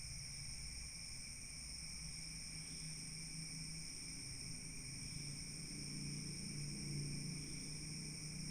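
Steady high-pitched chirring of night insects, likely crickets, over a low hum that grows slightly louder near the end.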